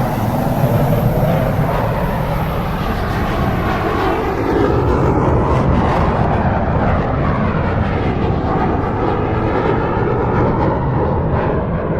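Airplane passing overhead: loud, steady engine noise with a slowly sweeping tone, its high, hissing part fading away over the second half as the plane draws off.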